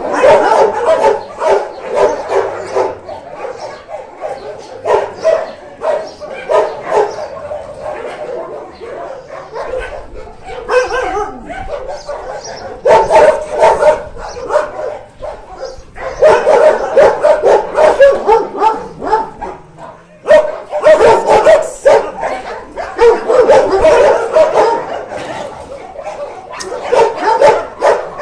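Several dogs barking over and over in loud bouts, with a quieter spell a little before the middle.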